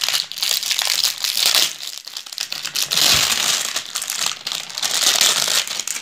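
Clear plastic wrapping crinkling and rustling as hands pull it off a new electric immersion water heater and its cord, with a brief lull about two seconds in.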